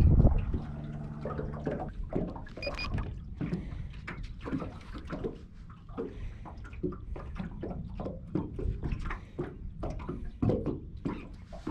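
Small waves lapping and knocking irregularly against a small boat's hull, over a low rumble. A steady low motor hum, likely the bow-mounted electric trolling motor, runs for about the first two seconds and then stops.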